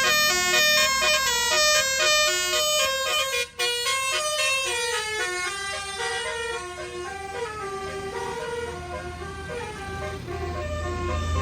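Tour bus's basuri telolet horn playing a quick melody of sustained notes that change step by step. The bus engine's low rumble grows louder near the end.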